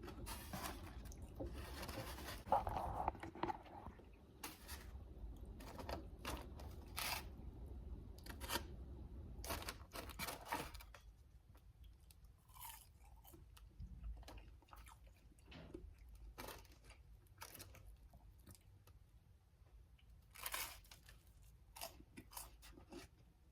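Close-up chewing and crunching of crispy fried chicken tenders from Raising Cane's: a run of sharp, crackly crunches that come thick for the first half, then thin out into quieter, slower chewing.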